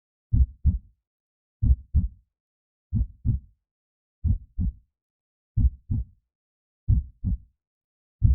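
Slow heartbeat sound effect: low double thumps (lub-dub) repeating evenly about every 1.3 seconds, roughly 45 beats a minute, with silence between beats.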